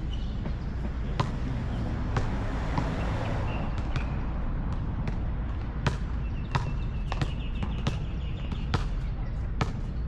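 A basketball being dribbled on a hard court: sharp single bounces about every half second to a second, over a steady low background rumble.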